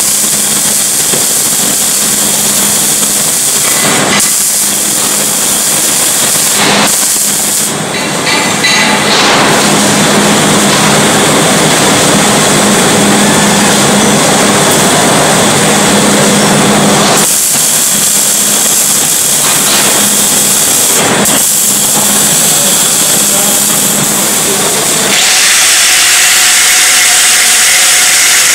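MIG welding arc crackling and hissing steadily over a low hum, stopping briefly a few times as the torch is lifted. About 25 seconds in it gives way to an angle grinder's high, steady shriek as it cuts through a steel plate.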